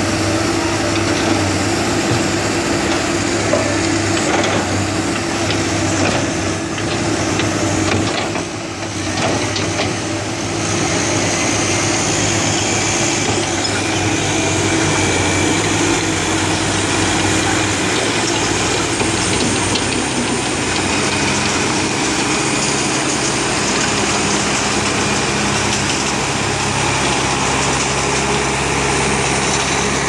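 Heavy diesel engines of crawler excavators and a Caterpillar D5K bulldozer running together as they dig and push soil: a loud, steady drone that dips briefly about nine seconds in.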